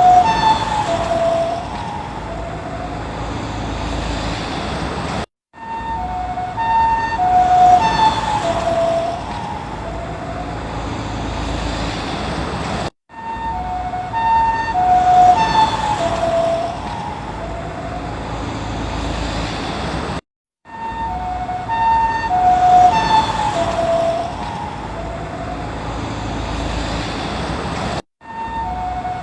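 Ambulance two-tone hi-lo siren passing by, its alternating tones dropping in pitch as it goes past (the Doppler effect) and then fading over vehicle rumble. The same pass-by repeats about every seven and a half seconds, with a brief silent gap between repeats.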